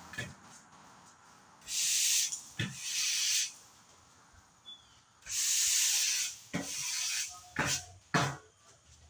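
Push broom sweeping sawdust and wood chips across a concrete floor in two long strokes of about two seconds each, with a few short knocks in between.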